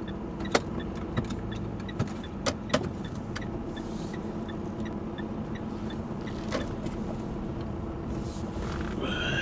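Interior noise of a vehicle driving slowly on a rough dirt road: a steady engine and road drone, with several sharp knocks and rattles from bumps in the first three seconds and another about six and a half seconds in.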